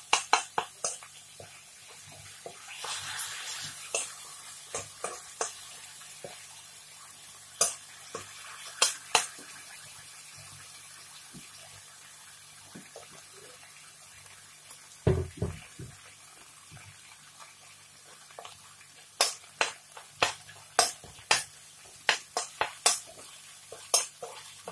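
Spoon scraping and clinking against a nonstick wok while stirring red curry paste frying in oil and coconut cream, over a faint sizzle. The taps come in clusters, near the start, around eight seconds in and in a quick run near the end, with one dull knock about fifteen seconds in.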